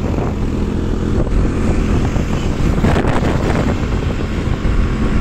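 Steady wind rush over the microphone together with the running engine of a motorcycle being ridden along a road, heard from the rider's seat.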